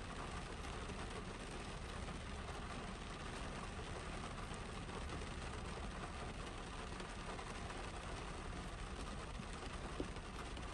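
Rain falling on a Honda CR-V's roof and windshield, heard from inside the cabin as a steady, even hiss with a low rumble beneath it. One sharper tap sounds near the end.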